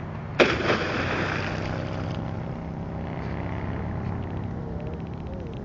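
A person plunging into lake water after a backflip off a pier: one loud splash about half a second in, its spray hissing away over the next second or so. A steady low hum runs underneath.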